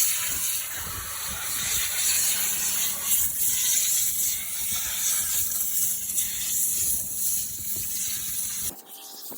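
Compressed air hissing hard from a bare air hose with no wand, blowing dust out of a combine harvester's radiator. It cuts off suddenly near the end.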